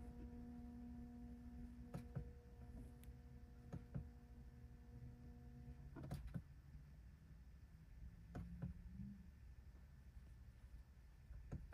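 Near silence: a faint steady hum that stops about six seconds in, and a few soft clicks from the driving-mode switch being pressed to step through the modes.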